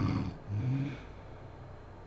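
A sleeping woman snoring loudly. A rough, rattling snore ends just after the start, a shorter, lower pitched sound follows about half a second in, and then there is quiet breathing.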